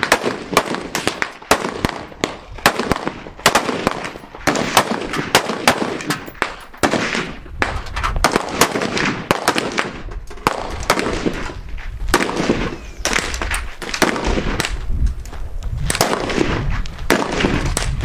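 Many guns firing at once on a busy outdoor shooting range. The shots are sharp, irregular and overlapping, from several shooters along the firing line, several per second.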